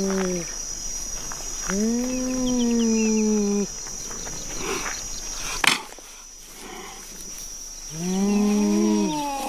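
Big-cat calls from cheetah, leopard and cougar recordings: three long, drawn-out calls, each rising and then falling in pitch. A sharp click about halfway through is followed by a quieter background.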